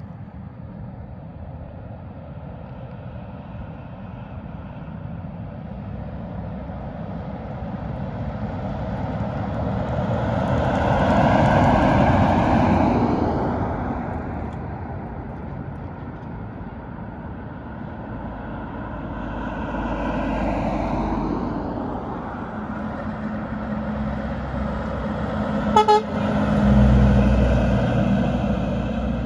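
Heavy trucks driving past, sounding their horns over engine noise. The sound swells and fades twice as trucks pass. Near the end there is a sharp crack, then a loud, deep engine rumble.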